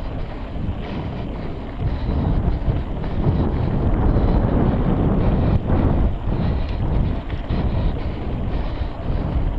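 Wind buffeting the microphone of a camera carried by a mountain biker riding along a dirt trail, an uneven, loud low rumble that swells and falls with the riding.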